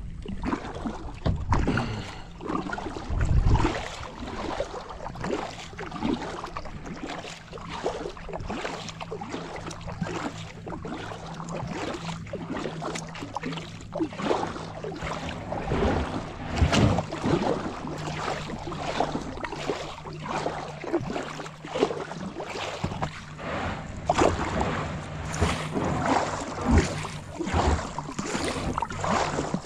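Kayak paddle strokes: the blades dip and pull through shallow water with repeated splashes and drips, close to the microphone.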